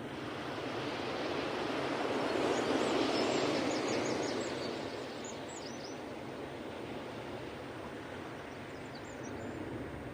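Ocean surf: a wave swells and breaks, loudest about three seconds in, then settles back into a steady wash. Small birds chirp over it in short bursts early on the swell and again near the end.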